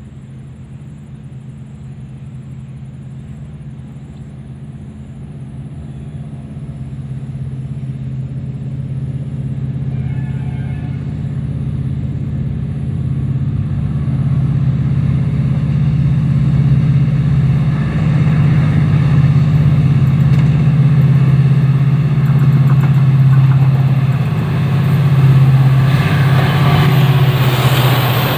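Diesel locomotive approaching: a steady low engine drone that grows steadily louder, with a rushing noise coming in near the end as the locomotive draws level.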